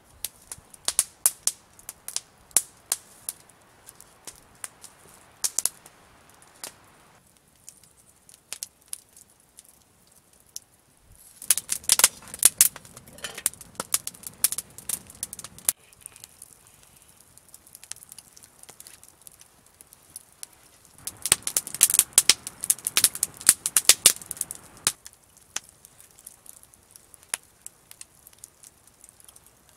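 Wood campfire crackling and popping: sharp snaps scattered at first, then two dense spells of rapid, loud popping, one near the middle and one toward the end.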